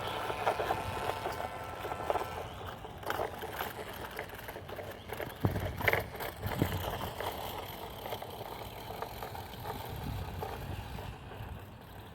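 Small electric motor of a toy RC car whining during the first couple of seconds, with scattered knocks and rattles as it drives over rough ground, the loudest knocks a little past the middle.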